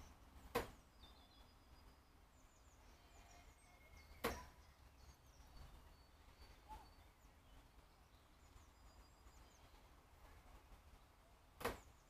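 Near silence with faint, high chirps of distant small birds, broken by three sharp knocks: about half a second in, around four seconds in, and near the end.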